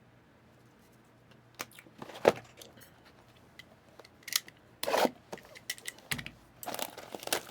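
Trading-card box packaging being handled and opened: scattered sharp clicks and short plastic and cardboard rustles, getting busier over the last couple of seconds.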